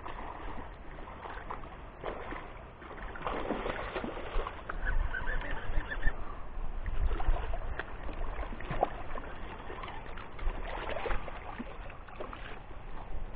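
Hooked channel catfish splashing and sloshing at the surface near the bank, on and off, over a low rumble of handling noise on the microphone.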